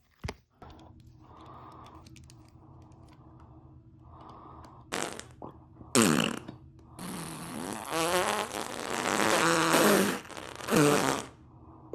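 A run of fart noises: after a few soft hissy patches, loud pitched blasts whose pitch wobbles up and down come from about halfway through, one of them drawn out over several seconds, with a shorter one near the end. A faint steady hum lies underneath.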